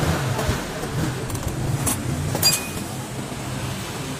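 A few sharp metal clinks from parts and tools being handled. The loudest comes about two and a half seconds in and rings briefly, over a steady low hum.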